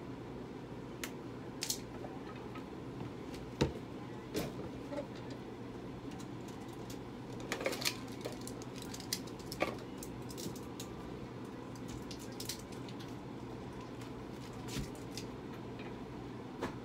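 Steady low hum of room equipment with a faint steady high tone, broken by scattered soft clicks and rustles of handling; the loudest click comes about three and a half seconds in.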